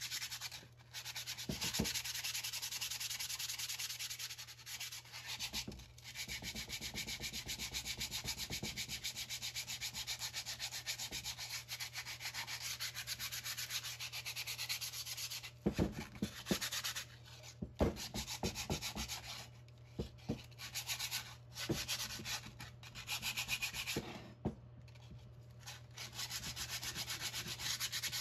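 60-grit sandpaper rubbed by hand over the rusty steel shank of a trailer-hitch ball mount, in quick back-and-forth scraping strokes that take off the rust. In the middle the strokes break off a few times, with several sharp knocks, then resume.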